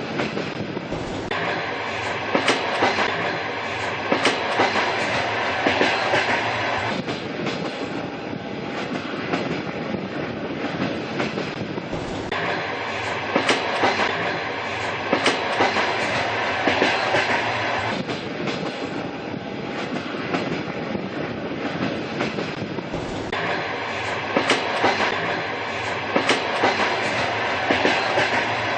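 Train rolling along the track, a steady rumble with wheels clacking over rail joints in groups of sharp clicks. The same stretch recurs about every eleven seconds.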